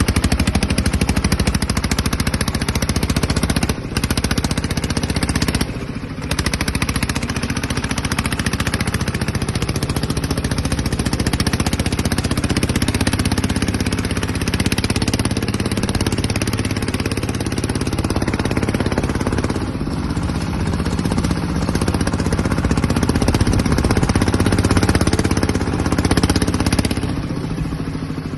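Yanmar TF150 horizontal single-cylinder diesel on a two-wheel walking tractor, running steadily under load as it pulls a trailer, its fast even exhaust beat loud throughout. The beat dips briefly twice in the first several seconds.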